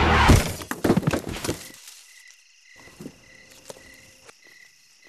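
A few sharp hits as the music stops in the first second or so, then night crickets chirping in a steady pulse, several chirps a second, with faint rustling and clicks among the leaves.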